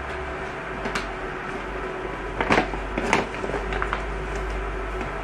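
A few sharp knocks and clatters of kitchen things being handled, the loudest two about two and a half and three seconds in, over a steady low hum.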